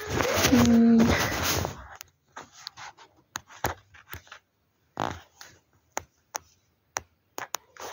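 Rustling and scraping, loudest in the first two seconds, then a string of scattered sharp clicks and taps: handling noise from a hand-held phone being moved about.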